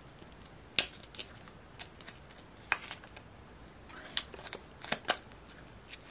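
Sharp plastic clicks and snaps, scattered at irregular moments, from fingers prying at a small round clear plastic tag case to open it.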